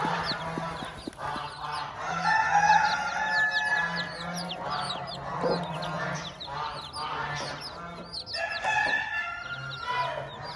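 Domestic chicks peeping in many quick high chirps throughout, mixed with adult chickens clucking and calling in longer, lower calls.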